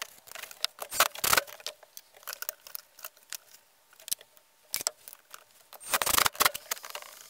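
Scattered clicks and knocks from a plywood bracket and its metal hinge being handled and marked against a wall. About six seconds in comes a short burst from a cordless drill driving a screw through the hinge.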